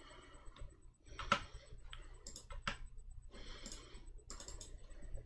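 Computer keyboard keys clicking, a few scattered, irregular keystrokes rather than steady typing, the sharpest about a second in.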